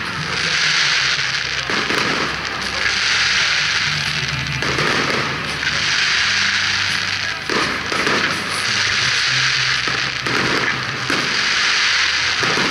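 Aerial fireworks bursting: repeated booms every second or two over continuous crackling.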